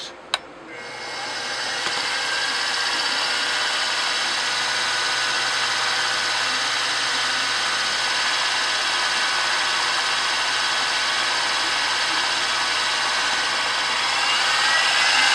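Milling machine spindle switched on with a click, spinning a Dremel abrasive cutoff wheel up to speed, then running steadily with a high whine and hiss. Near the end the pitch rises and it grows a little louder before cutting off suddenly.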